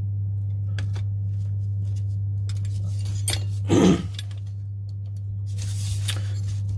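Small metal parts of an airsoft 1911 pistol's lower frame clicking and clinking as they are handled, with a louder clatter a little under four seconds in. A steady low hum runs underneath.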